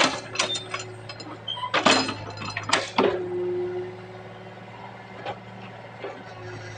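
Excavator engine running steadily, with a cluster of sharp clanks and knocks in the first three seconds.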